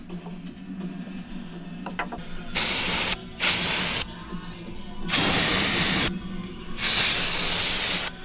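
Aerosol can of brake cleaner sprayed in four hissing bursts, each about half a second to a second long, starting a couple of seconds in.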